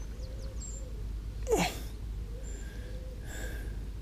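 A person's short vocal sound with a steeply falling pitch about a second and a half in, then a breathy hiss near the end.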